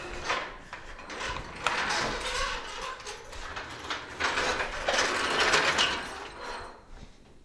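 Irregular metallic clanking, rattling and ratchet-like clicking of shop equipment being handled and moved on a concrete floor, loudest in two stretches in the middle.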